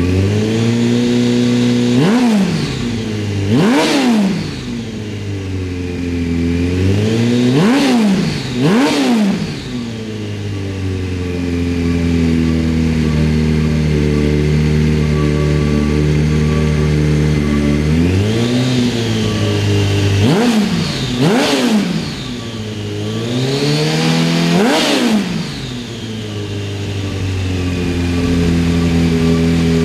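Honda CBR1100XX Blackbird's inline-four engine idling, with about eight quick throttle blips that rise and fall back to idle, in two clusters with a steady idle between them.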